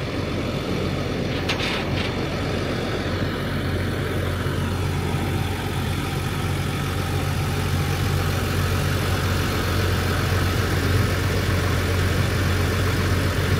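Flatbed tow truck's engine idling steadily with a low, even hum. A couple of light clicks sound about two seconds in.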